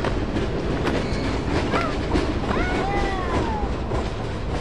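Tail end of a Union Pacific freight train rolling through a road crossing: a steady rumble with wheels clacking over the rails. A few short squeals that rise and then fall come partway through.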